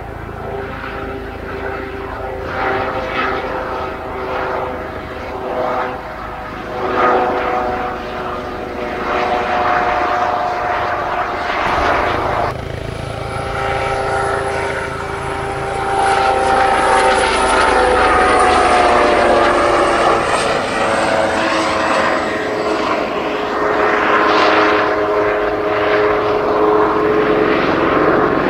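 Kawasaki OH-1 helicopter flying past: the whine of its twin turboshaft engines over the rotor blade noise. Its pitches slide slowly as it moves and banks, and it gets louder about halfway through.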